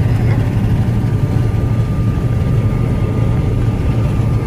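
Combine harvester running steadily during wheat harvest: a continuous low engine drone with a faint steady whine above it.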